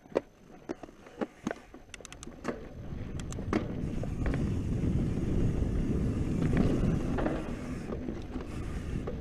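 Mountain bike setting off down a dirt singletrack: a few sharp clicks and knocks at first, then from about three seconds in a rising, steady rumble of knobby tyres on dirt and rushing air as the bike gathers speed.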